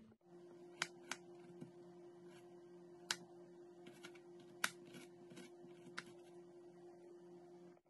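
Thin samosa pastry sheets being handled and folded: soft rustling with a few sharp light clicks and crackles, over a steady low hum.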